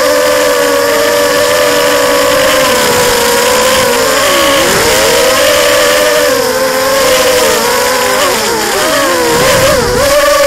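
FPV racing quadcopter's brushless motors and propellers whining, heard from its onboard camera. The pitch dips and climbs again with throttle changes about halfway through and a couple of times near the end.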